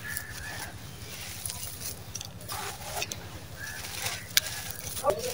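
Hands crumbling dry, gritty charcoal sand-cement and letting the grains pour and patter down, with a crackly crunch throughout and a sharp click about four seconds in.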